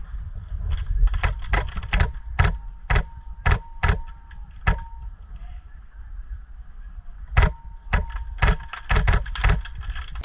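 Airsoft guns firing single shots, sharp clicks at about two to three a second in two runs with a pause between, over a low rumble.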